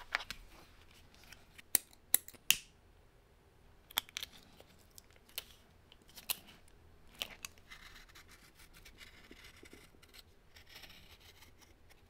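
Thread snips clipping the thread ends of saddle stitching on vegetable-tanned leather: a series of sharp snips, the loudest in the first three seconds. Near the end comes faint steady scraping as a knife trims the leather edge.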